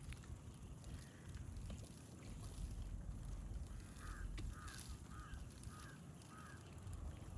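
A bird calls five times in a row, each call short and about half a second apart, over a steady low rumble.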